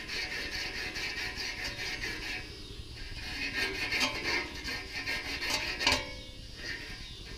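An abrasive strip pulled back and forth around the rusty fan motor shaft of an old Goodman condenser, a scratchy rubbing in quick, uneven strokes: the shaft is being sanded clean of rust so the seized fan blade hub will slide off.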